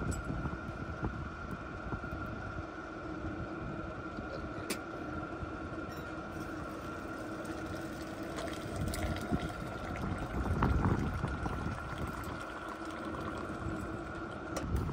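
Hot water poured from a small camping kettle into a cup, a thin stream splashing and filling, over a steady background hum and low rumble.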